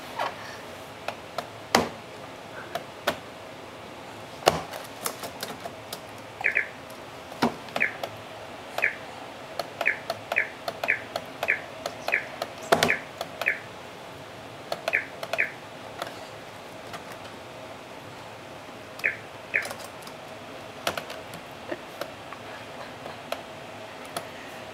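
A baby's hands slapping and tapping the keys and trackpad of a white Apple laptop: irregular clicks and taps. From about six to fifteen seconds in, and twice more near nineteen seconds, there are short high chirps.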